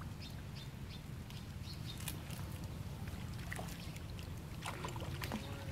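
Light splashing and sloshing of water as macaques swim at the edge of a pond, with scattered short clicks and splashes over a steady low rumble.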